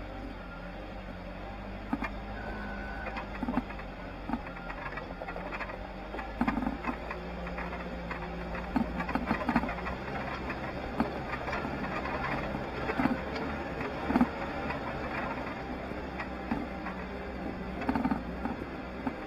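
4x4 vehicle driving slowly over a rough gravel track: a steady engine hum with irregular knocks and rattles from the body and suspension as it crosses the bumps.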